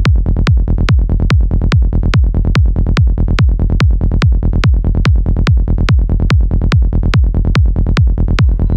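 Psychedelic trance music: a steady four-on-the-floor kick drum at about two and a half beats a second, each kick falling in pitch, over a continuous low rolling bassline.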